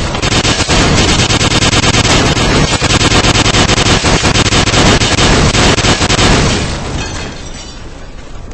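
Loud, harsh, crackling noise that fills every pitch, like a heavily distorted blast, fading away over the last couple of seconds before cutting off.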